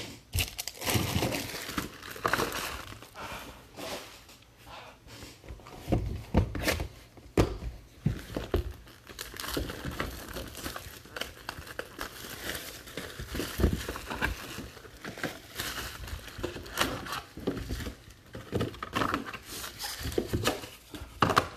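Trading-card pack wrappers being torn open and crinkled by hand, with irregular crackling and a few sharp snaps as packs are handled.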